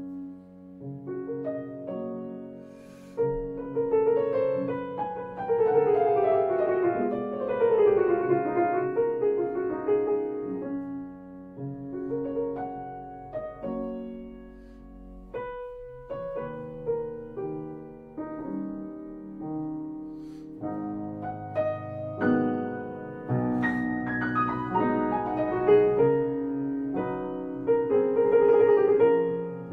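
Grand piano played solo in a fast, virtuosic passage: cascading runs down the keyboard about five seconds in, a momentary break near the middle, then a loud sweeping flourish toward the end.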